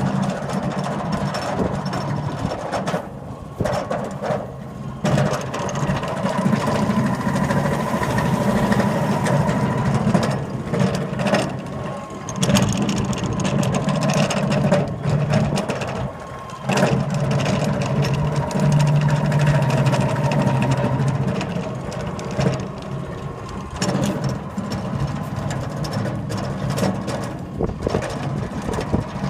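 Belt-driven oilfield pumpjack running, with a low hum, a thin steady whine and scattered sharp knocks; the noise could be loose belts or bad bearings.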